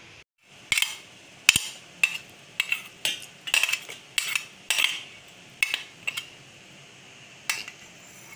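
Steel spoon scraping and knocking against stainless-steel idli plate moulds and a steel bowl as steamed grated tapioca is scooped out: a run of sharp metal clinks about two a second, thinning out near the end.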